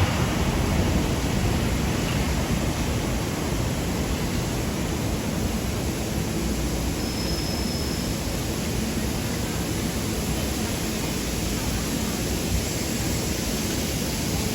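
Steady city street ambience: an even rush of traffic noise with no distinct events.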